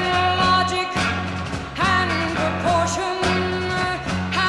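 1960s psychedelic rock band recording: a woman's lead vocal over electric guitar, drums and a steady pulsing bass line.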